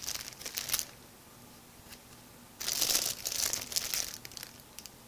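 Clear plastic packaging of embroidery floss skeins crinkling as hands rummage in it and pull skeins out. There is a short spell of crinkling in the first second and a louder, longer one around the middle.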